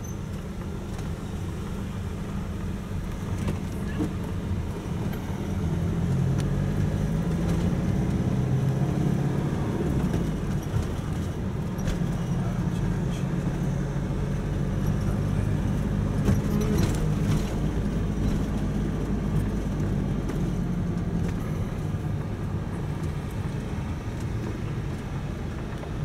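Vehicle engine and road noise heard from inside the cab while driving in city traffic. A steady low hum, with the engine note rising and getting louder about six seconds in as the vehicle picks up speed.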